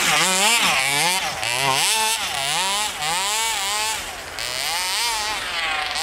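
Smartech 27cc two-stroke engine with a tuned pipe on a large-scale gas RC truck, revving up and down as the throttle is worked, its pitch rising and falling about twice a second while the truck churns through deep snow.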